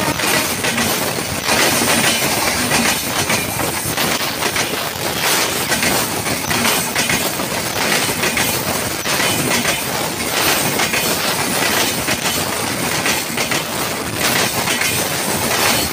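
Passenger train coaches rolling past, wheels clattering steadily over the rail joints.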